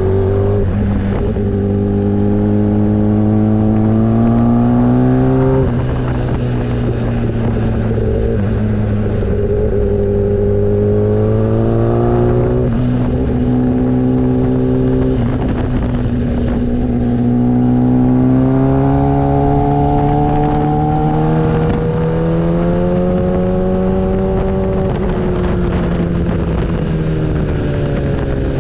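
Motorcycle engine running under way, its pitch climbing slowly and then dropping sharply at each gear change, several times, over steady wind rush.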